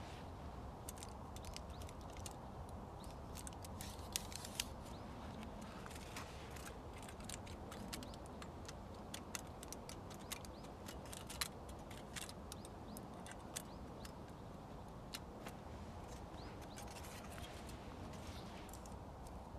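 A folding knife cutting and trimming a thin strip of aluminium foil on a wooden stump, with scattered small crinkling and scraping clicks, a few sharper than the rest, over a faint steady background hiss.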